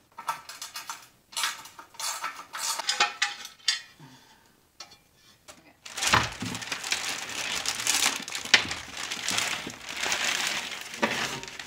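Light metallic clinks and taps of hand tools and bolts against a dirt bike's metal skid plate. After a short pause, a long stretch of clear plastic bag rustling and crinkling as a new plastic skid plate is unwrapped.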